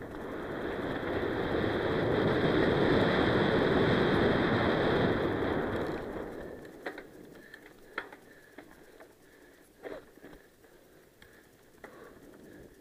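Rush of wind over the camera mic and mountain-bike tyres rolling on loose gravel at descending speed, swelling over the first couple of seconds and fading away about six seconds in. After that comes quieter riding on dirt singletrack, with a few sharp clicks and knocks from the bike over bumps.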